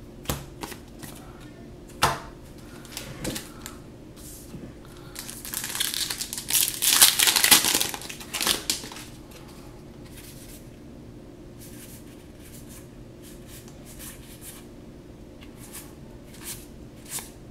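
Foil Magic: The Gathering booster pack wrapper crinkling and tearing open, loudest from about five to nine seconds in. Before and after it, scattered light clicks of cards being handled.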